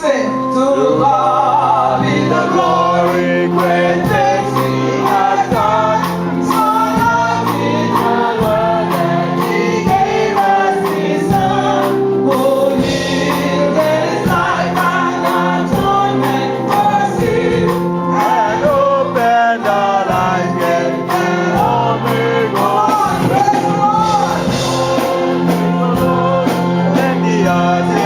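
Gospel choir singing with instrumental accompaniment, held low notes under the voices.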